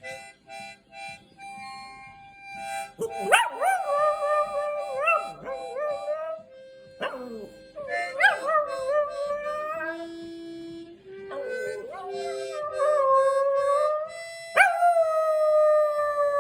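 A dog howling along to held musical notes. For the first three seconds there are only short steady notes. Then the dog gives four long, wavering howls, starting about three, eight, twelve and fifteen seconds in, with the notes going on between and under them.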